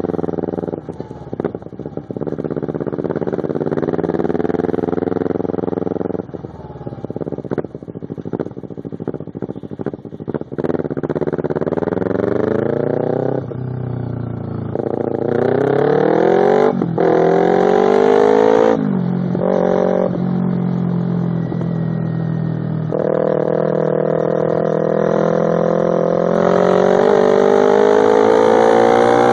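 Kawasaki Ninja 250R parallel-twin engine through a Two Brothers slip-on exhaust, pretty loud, pulling through the gears: the note climbs, drops at each shift, holds steady for a few seconds mid-way, then climbs long near the end. Muffled knocks and rubbing from the phone recording in a pocket are heard in the first half.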